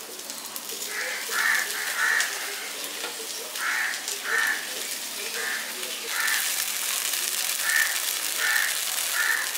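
A crow cawing repeatedly, about ten short caws in runs of two or three, over the steady sizzle of a frying pan. The sizzle grows louder about six seconds in as wet flattened rice goes into the hot pan.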